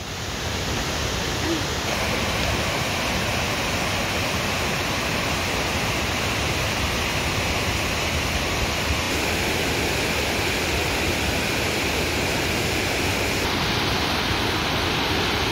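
Steady rushing of a tall alpine waterfall and the torrent cascading over rocks below it. It is one even roar that swells in over the first second, then holds, shifting slightly in tone a few times.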